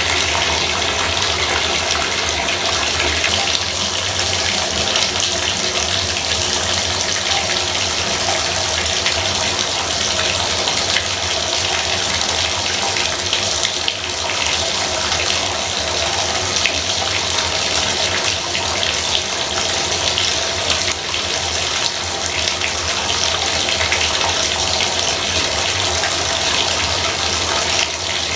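Bathtub faucet running steadily, water splashing into the tub in an even, continuous rush.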